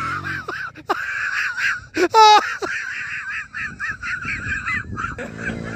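People laughing hard, with short bursts of laughter and a loud laughing shout about two seconds in. Near the end a motorcycle engine comes in underneath.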